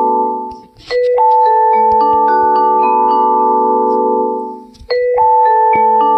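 A marimba-style ringtone melody playing on a loop: a phrase of struck mallet notes fades out, breaks briefly, and starts over about a second in, then again near the end.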